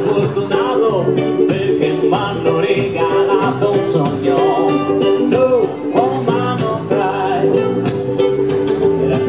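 Live acoustic music from a small ukulele band: ukuleles and guitar strummed and plucked, amplified through PA speakers, playing continuously.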